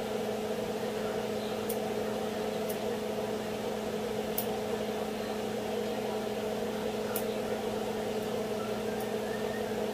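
Steady electric hum of a running kitchen appliance, with a few faint, light clicks scattered through it.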